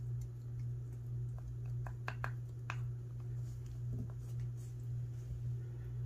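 A few light metallic clicks from a century-old Yale & Towne push-style padlock being worked by hand, bunched about two seconds in with one more near four seconds, over a steady low hum. The lock is hung up part-open, which the picker puts down to a pin stack that must have dropped in.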